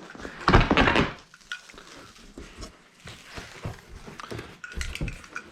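A cardboard bike shipping box being opened and its packing handled: rustling, scraping and light knocks, loudest about half a second in and again near the end.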